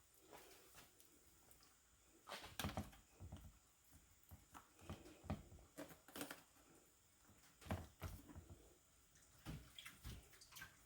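Faint kitchen handling: a scatter of soft knocks and wet taps as cooked lasagna pasta sheets are laid into a baking pan.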